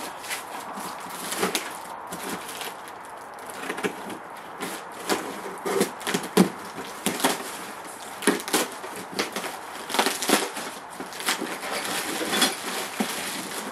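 Plastic packaging crinkling and rustling as it is cut open with a box cutter and pulled apart, with many irregular sharp crackles and light knocks of parts against the cardboard box.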